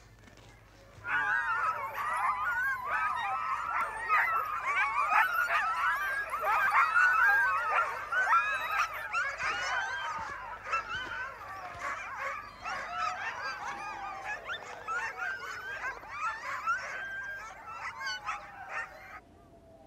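A chorus of many Greenland sled dogs howling and yelping together, with long rising and falling howls overlapping shorter yips. It starts suddenly about a second in and cuts off near the end.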